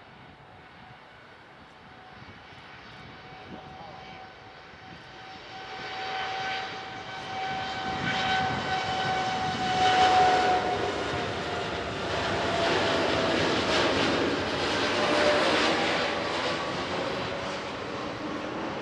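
Boeing 787 Dreamliner's twin turbofan engines at takeoff thrust during the takeoff roll, growing steadily louder as the jet accelerates down the runway toward and past the listener. A steady whine runs through the engine noise and drops a little in pitch once the aircraft goes by, about halfway through, where it is loudest.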